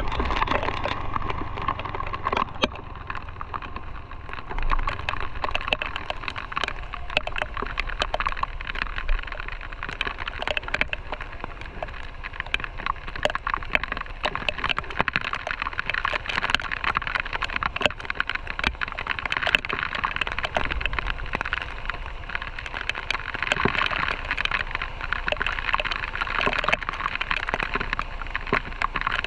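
Raindrops striking the camera housing in many irregular sharp ticks over a steady hiss of heavy rain and wet road.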